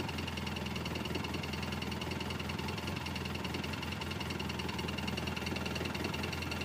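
A steady mechanical hum, like an idling engine, with a thin high tone over it, holding the same level throughout.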